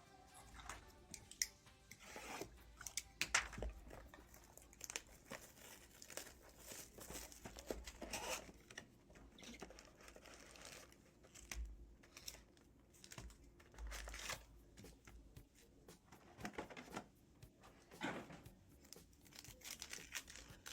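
Trading card pack wrappers being torn open and crinkled by hand, with irregular tearing, crinkling and small clicks from handling the packs and cards.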